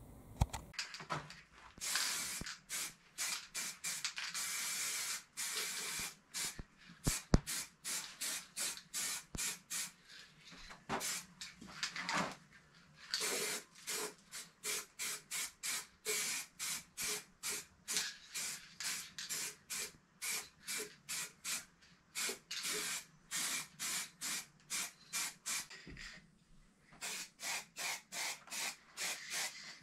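Rust being scrubbed off a metal part by hand: quick back-and-forth scraping strokes, about two a second, with a sharp knock about seven seconds in.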